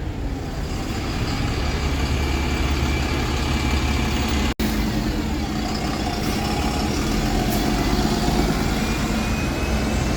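Bus engine running with a steady low drone. The sound drops out completely for an instant about halfway through.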